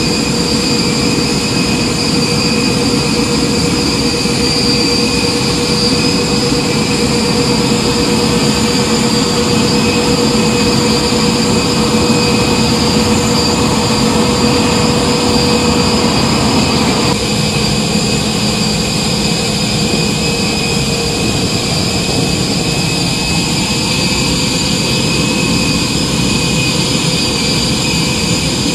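Boeing 747 freighter's jet engines running at idle: a loud, steady rush with a high, held whine. About 17 seconds in, one of the tones drops out and the sound gets slightly quieter.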